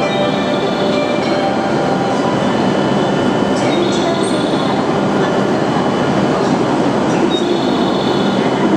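E7/W7-series Hokuriku Shinkansen train moving along the platform: a loud, steady rush of running noise, with faint high wheel squeals now and then.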